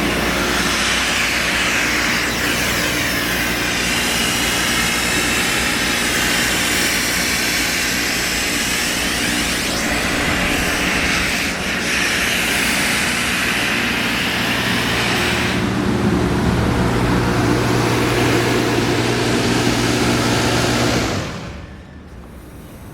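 Kaeser SK-19 15 hp rotary screw air compressor running on three-phase power: a steady mechanical drone with an electric hum and a broad rushing hiss. About 21 seconds in the noise drops away sharply to a much quieter level.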